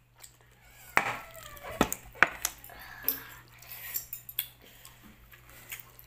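Eating sounds close to the microphone: a string of sharp clicks and mouth smacks as chicken is pulled apart by hand and chewed, with light clinks of ceramic dishes being handled.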